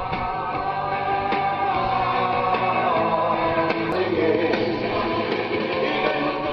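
A song with singing plays loudly through a Sony Shake-X10D audio system's speaker. The playback shows its sound is back after the no-sound repair.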